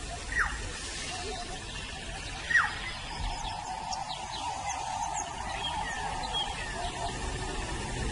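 Birds calling: two loud, short whistles that fall sharply in pitch, about half a second and two and a half seconds in, over many brief high chirps.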